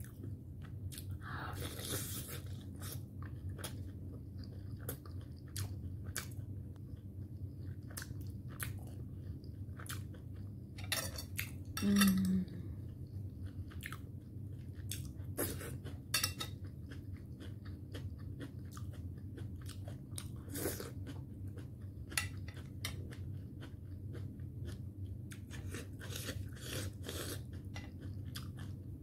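Eating sounds: chewing of steamed momos and crunchy diced cucumber-tomato salad, with many short mouth clicks over a steady low hum. About twelve seconds in, a brief low hum-like tone is the loudest sound.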